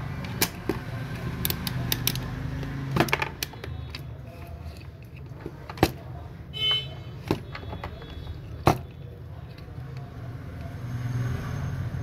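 Steady low rumble of background traffic, with scattered sharp clicks and taps as multimeter probe tips touch a keypad phone's circuit board. A short high beep sounds a little past halfway.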